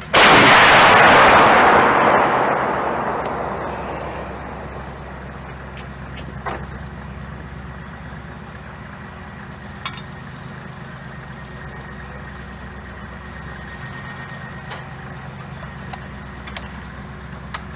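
An artillery gun fires a single round right at the start, and the blast dies away over about four seconds. A vehicle engine idles steadily with a low hum, broken by a few faint clicks.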